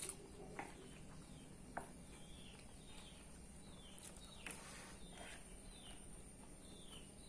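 Faint quiet scene: a metal spoon and fork clink against the plate now and then while a bird calls in the background, a run of short falling chirps repeated every half second or so.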